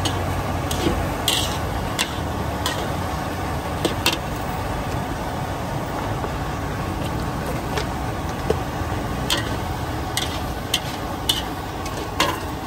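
Utensils and dishes clinking in short, sharp, irregular strikes over a steady background noise at a food buffet.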